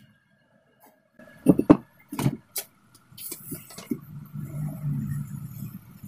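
A few sharp knocks and clicks from tools and wire being handled on a workbench, starting about a second and a half in, followed by softer, continuous handling noise.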